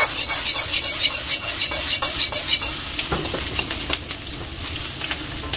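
Fried rice sizzling in a hot wok while a metal ladle stirs and scrapes it, with quick clinks of ladle on wok. The stirring and clinking are busiest and loudest in the first half, then ease off.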